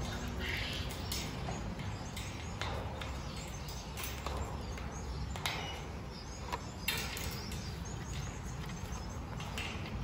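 Blue-and-gold macaw clambering on its wire cage: scattered clicks and scrapes on the wire and a few short, harsh calls, over a steady low rumble.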